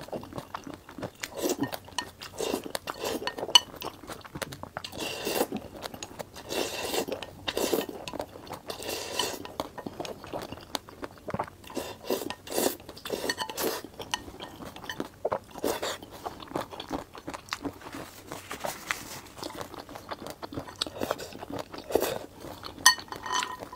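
Slurping and chewing of oily Nanchang mixed rice noodles, in many short irregular bursts, with wooden chopsticks clinking and scraping against a ceramic bowl.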